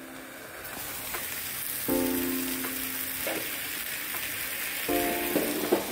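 Jowar-flour thalipeeth frying in oil on a nonstick pan, a steady sizzle that comes up about half a second in as the glass lid is lifted off. Background music plays sustained keyboard chords twice over it.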